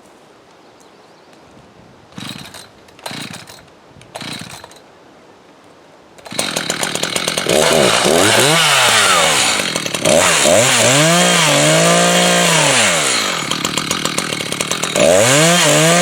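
Three short noises, then about six seconds in a two-stroke chainsaw starts and runs loud, its engine speed swinging up and down again and again as it is revved, during the felling of a white spruce.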